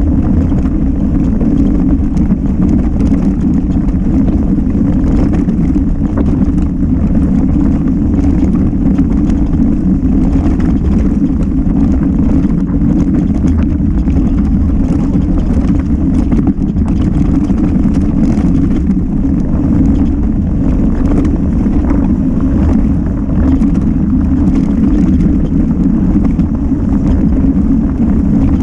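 Mountain bike descending fast on a rough trail: a loud, steady low rumble of wind and tyre noise on the microphone, broken by frequent knocks and rattles from the bike.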